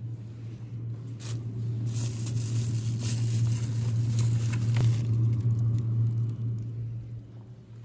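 Plastic bags of frozen food rustling and crinkling as a hand rummages in a freezer compartment and pulls out a plastic container, with a few light knocks. A steady low hum runs underneath, and the rustling is loudest in the middle.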